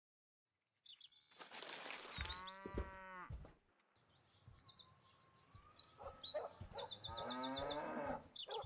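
Cow mooing twice, one long moo about two seconds in and another near the end, with small birds chirping and trilling in between.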